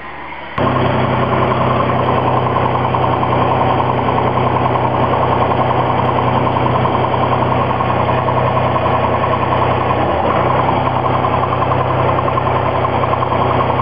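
Cessna 182S's six-cylinder Lycoming IO-540 engine and propeller running steadily, heard from inside the cockpit. The sound cuts in abruptly about half a second in.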